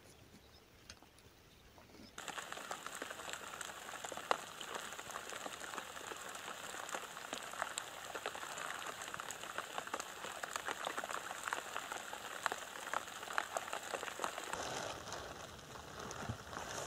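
Light rain pattering on a river's surface, a dense steady patter of many small drops. It starts abruptly about two seconds in and softens a little near the end.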